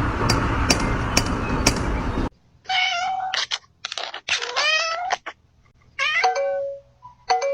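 A domestic cat meowing about five times in a row, each meow bending up and down in pitch, after a couple of seconds of dense noise broken by four sharp taps.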